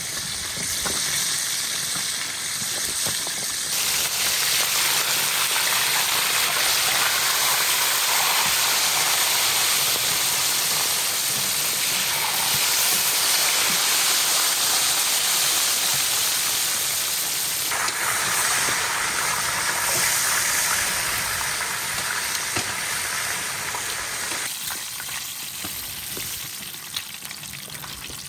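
Food sizzling in hot oil in a pan, a steady hiss that shifts in strength a few times.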